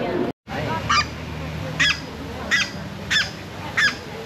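Waterfowl calling on a pond: a short, high honk repeated about every two-thirds of a second, five times.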